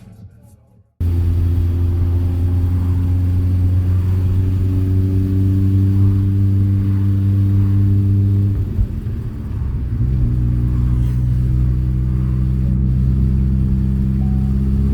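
Old car's engine droning through a custom exhaust and header at steady cruising revs, cutting in suddenly about a second in. About nine seconds in the drone briefly dips and wavers, then settles at a lower steady pitch, as after an upshift.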